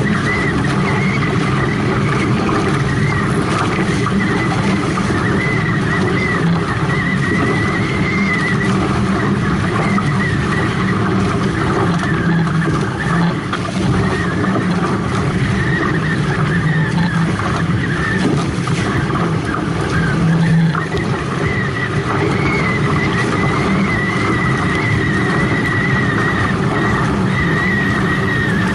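Water rushing past a Hobie 18 catamaran's hulls under sail at speed, with wind buffeting the microphone; steady throughout. A thin high whistle wavers above it, coming and going.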